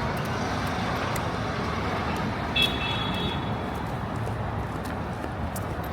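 City street traffic: a steady wash of passing cars and buses, with one short high-pitched toot about two and a half seconds in.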